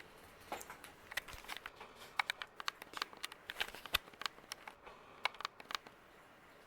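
Irregular light clicks and ticks, several a second and unevenly spaced, over a faint steady background, with a ceiling fan running on high speed.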